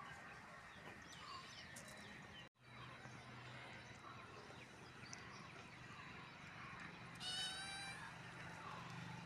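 A kitten gives one short meow, under a second long, near the end, over faint repeated chirping in the background.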